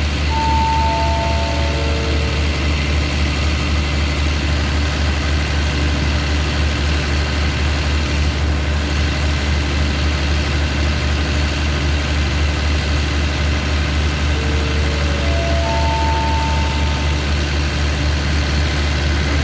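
Steady low diesel hum of a stationary passenger train's engine idling. About half a second in, a four-note chime steps down in pitch; about fourteen and a half seconds in, a four-note chime steps up in pitch.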